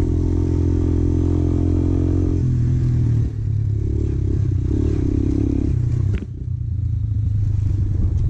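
Motorcycle engine running steadily while riding, with a low, even drone that dips briefly about six seconds in.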